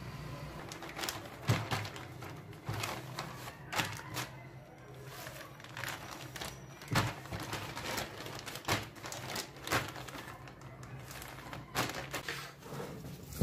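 Plastic zip-top freezer bag crinkling and rustling in irregular clicks as stacked baghrir pancakes are packed into it.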